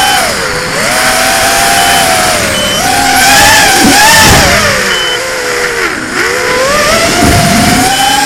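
FPV quadcopter's brushless motors and propellers whining, the pitch rising and falling with the throttle. About four seconds in, during a hard bank, the whine grows loudest and splits into several close tones, with short bursts of low rumble.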